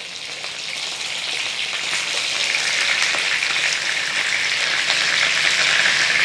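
Breadcrumbed chicken breasts shallow-frying in hot oil in a frying pan while being turned with tongs: a dense crackling sizzle that grows steadily louder.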